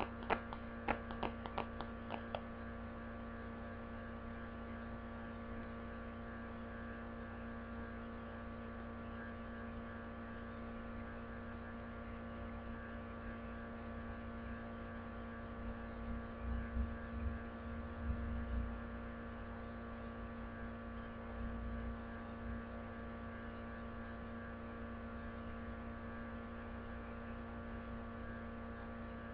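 Steady electrical hum, a buzzy stack of even tones, with a quick run of clicks in the first couple of seconds and a few low thumps around the middle.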